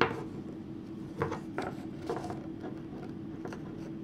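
Wooden knitting needles clicking and scraping, with yarn rubbing, as chunky-yarn stitches are knit: one sharp click at the start, then a few softer clicks about a second in, over a faint steady hum.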